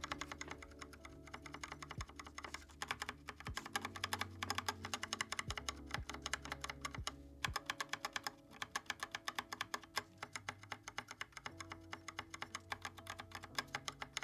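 Fast typing on a mechanical keyboard, a dense run of key clacks, as a sound test of HyperX Pudding keycaps against the stock keycaps. The pudding keycaps sound fuller, the stock ones dull.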